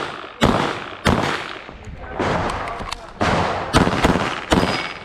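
A pistol fired in quick succession, about seven shots at uneven gaps of half a second to a second, each followed by an echoing decay.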